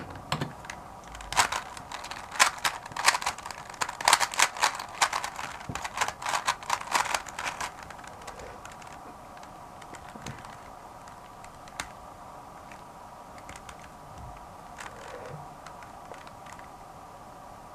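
3x3 Rubik's-type speedcube being turned fast to scramble it: a dense rattle of plastic layer-turn clicks for about seven seconds, then only a few scattered single turns.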